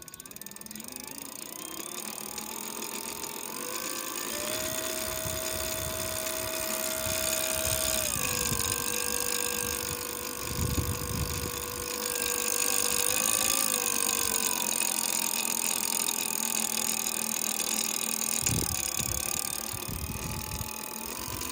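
Bafang BBS02 mid-drive e-bike motor running with a strange noise: a whine that climbs in pitch over the first four seconds, holds, drops about eight seconds in, then wavers, over a rough rumbling noise.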